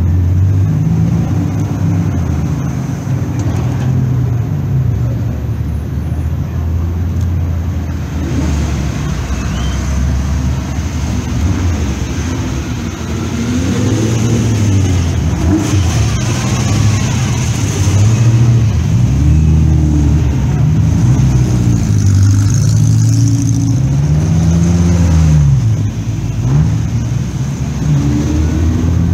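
Engines of several classic sports cars running and being revved as the cars drive off one after another, each blip of the throttle rising and falling in pitch.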